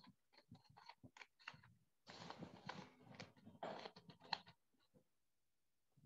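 Near silence broken by faint, irregular clicks and a couple of soft rustling noises about two and three and a half seconds in.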